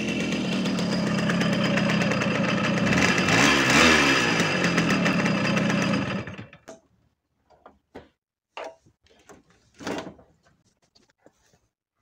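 Small moped engine running, revved up and back down once, then cut off about six seconds in. A few faint knocks and clicks follow.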